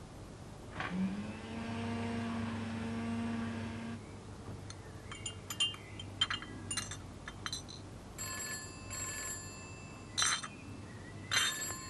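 A teaspoon clinking against a china teacup as tea is stirred, followed near the end by the call box's wall telephone bell ringing in bursts. Before the clinking, a steady low tone holds for about three seconds.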